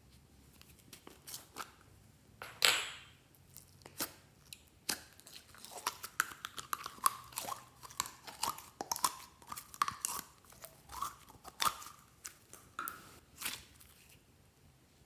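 Glossy slime being squished and mixed by hand: a run of short sticky clicks and crackly pops, with one louder wet squelch a few seconds in.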